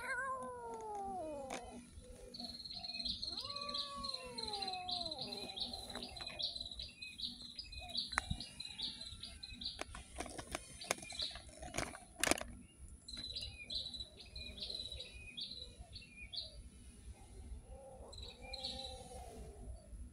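A cat meows twice, long calls falling in pitch, in the first few seconds, and once more faintly near the end. A bird chirps in quick high notes in the background, and a single sharp click sounds partway through.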